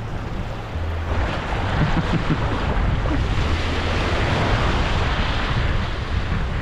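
Surf washing onto the beach, a rushing noise that builds about a second in and is fullest in the middle, with wind buffeting the microphone as a low rumble.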